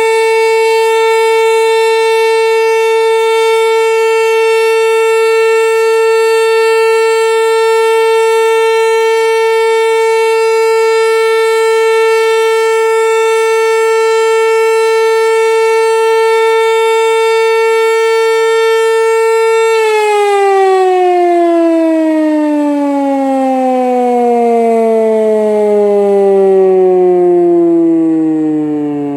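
Pneumatic high-performance civil-defence siren sounding a loud, steady tone. About twenty seconds in, the pitch starts to fall steadily as the siren winds down, marking the end of the steady-tone all-clear signal (Entwarnung).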